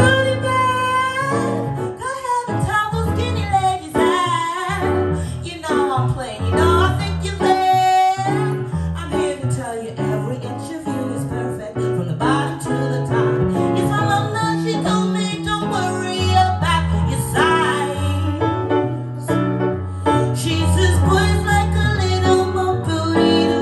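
A woman singing with vibrato and sliding held notes, accompanied by a digital piano playing chords over a steady bass line.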